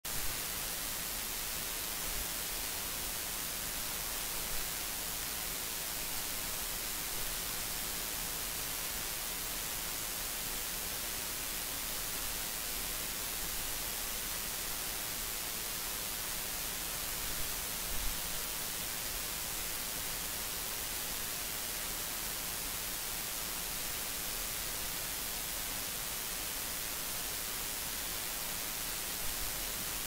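Steady hiss of recording noise, strongest in the high frequencies, with a faint low hum and a few faint short clicks.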